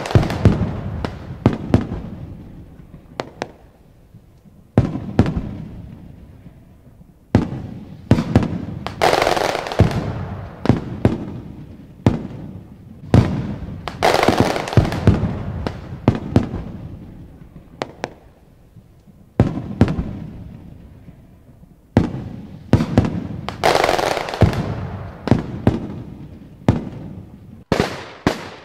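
Fireworks display: aerial shells bursting in a string of sharp bangs, one every second or two, each trailing off slowly. A few bursts are followed by a second or two of dense crackling.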